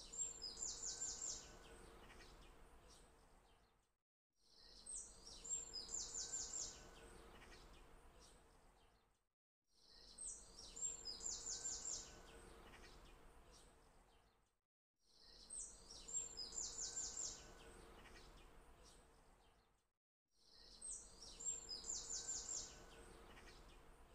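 A short recorded birdsong phrase played on a loop: a few high chirps, then a quick run of about six notes, fading out, repeating about every five seconds with brief silences between.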